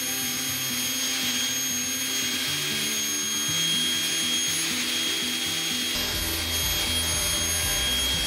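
A woodworking power tool running steadily with a hiss and faint whine, under background music with a stepping melody; a bass line comes in about six seconds in.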